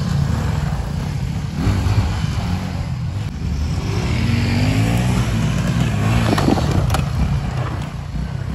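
Suzuki V-Strom SX motorcycle's single-cylinder engine revving up and down as it is ridden on a dirt track, its pitch rising and falling several times.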